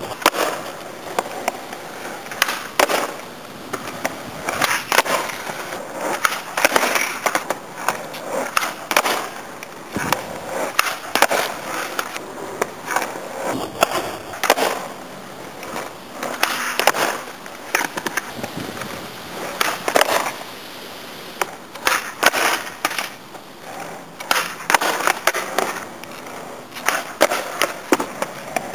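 Skateboard on rough concrete: the wheels rolling, with repeated sharp clacks from the tail popping and the board slapping back down as flip tricks are landed and bailed.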